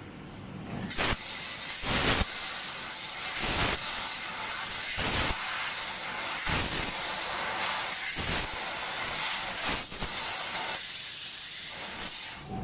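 Fiber laser cutting machine cutting shapes from a metal sheet: the gas jet at the cutting head hisses loudly, starting about a second in and cutting off shortly before the end, with brief louder blasts every second or two.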